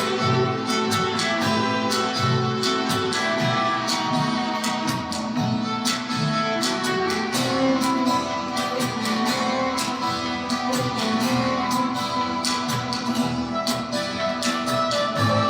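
Cumbia music: a steady beat of quick percussion strikes under plucked guitar and sustained melodic lines.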